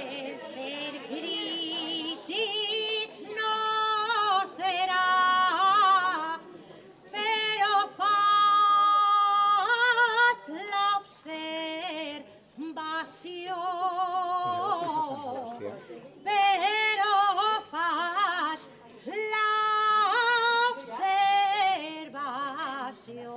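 A solo voice singing an improvised Valencian verse in the cant d'estil manner: a high, ornamented line with wide vibrato, in phrases of a few seconds with short breaks between them.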